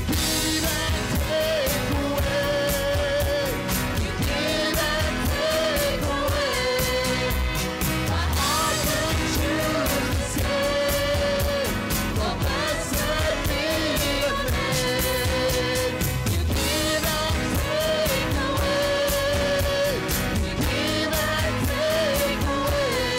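Live worship band playing a song: a group of singers with keyboards and acoustic guitar over a steady beat.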